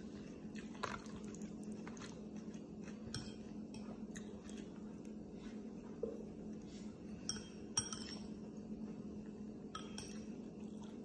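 Quiet eating: a person chewing pieces of charred grilled onion, with scattered small clicks and clinks over a steady low hum.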